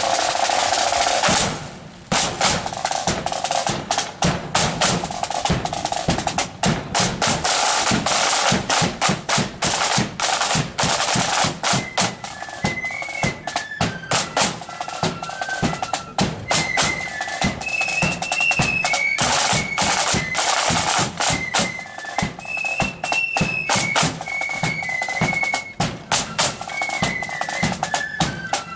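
Marching flute band: snare drums play rolls and rapid beats over a bass drum. Flutes join with a melody about twelve seconds in.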